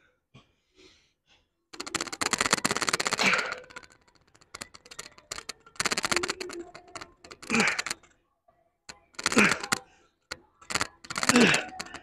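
Rapid rattling clicks of something knocking against headphones as the lifter shakes under strain, in bursts of a second or two with short gaps between, with strained grunts inside some of the bursts.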